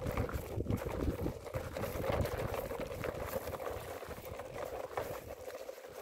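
Plastic toy dump truck dragged on a string over gravel, its wheels crunching and rattling over the small stones in a dense, continuous crackle.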